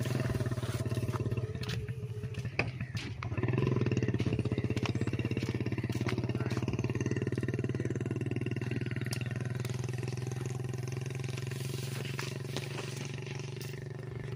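An engine running steadily with an even, low drone, getting louder about three and a half seconds in and easing off slowly towards the end, with a few light clicks in the first few seconds.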